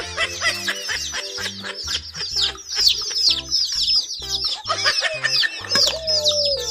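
Many baby chicks peeping: a dense, continuous run of short, high, falling chirps, over background music with a regular bass beat.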